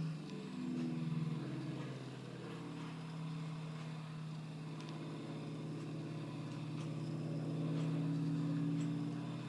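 An engine running steadily with a low, even-pitched drone. It grows louder toward about eight seconds in, then eases.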